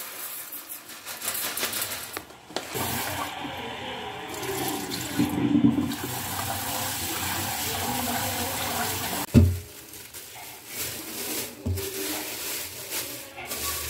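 Glutinous rice poured into a metal pot, then the kitchen tap running into the pot as the rice is rinsed, a steady rush of water. About nine seconds in there is a sharp knock, after which the water dies down to quieter handling sounds.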